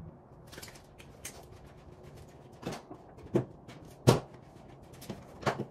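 Irregular sharp knocks and clacks of work in a garage, about seven in all, the loudest about four seconds in.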